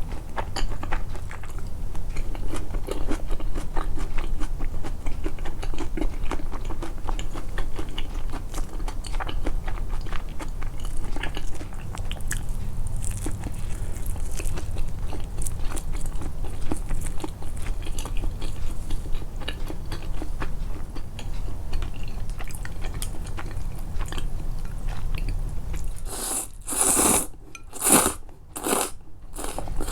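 A person chewing and biting food close to the microphone, a dense run of small wet clicks and crunches from the mouth. Near the end come four louder, short noisy sounds.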